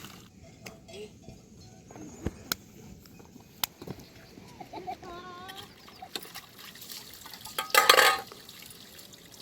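Scattered clinks and knocks, as of pots or utensils being handled, over faint running water, with a brief louder rush of noise about eight seconds in.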